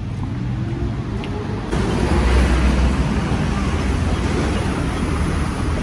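Road traffic: an engine note rising as a vehicle speeds up, then a fuller, steady rumble of passing traffic, loudest about two seconds in.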